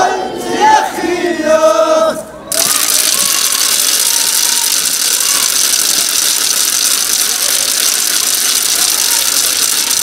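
Crowd of voices shouting and chanting, cut off about two seconds in by a steady, loud hiss with no voices in it.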